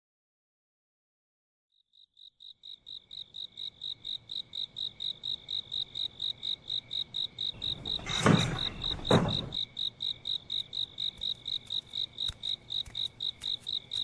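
Cricket chirping steadily at about five chirps a second, starting about two seconds in and swelling to full level. Two short thuds about a second apart stand out near the middle, the loudest sounds here.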